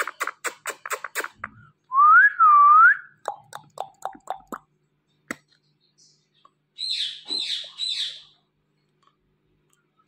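A person kisses a ringneck parrot, a fast run of smacking kisses in the first second. Then a loud clear whistle rises, dips and rises again. A few short soft chirps follow, and three short harsh calls come near the end.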